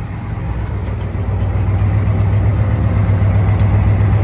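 A vehicle engine running with a steady low hum that grows louder about a second and a half in.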